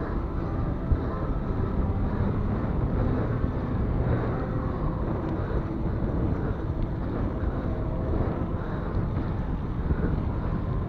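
Steady rush of wind on the microphone, with mountain bike tyres rumbling on asphalt while riding.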